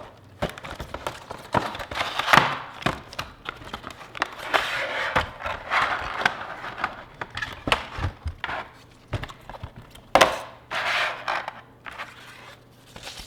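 A small cardboard product box and its packaging being opened and handled by hand: a busy run of clicks, light knocks and crinkly rustles, with a sharper knock about two seconds in and another near ten seconds.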